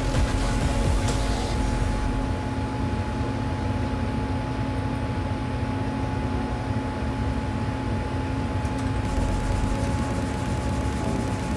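Steady drone of a Thunder Laser Nova 35 CO2 laser engraver's fans and pumps running, a low rumble with two steady hum tones. A fainter high hiss on top drops away about two seconds in and comes back about nine seconds in.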